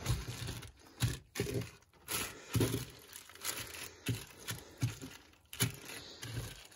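Black plastic trash bag crinkling and rustling in short, irregular bursts as salmon roe skeins are handled and laid out on it.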